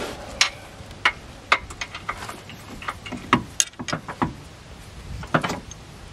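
Irregular metallic clicks and knocks from hand tools and front suspension parts being handled and fitted, with a few louder clanks about three and a half seconds in and again near the end.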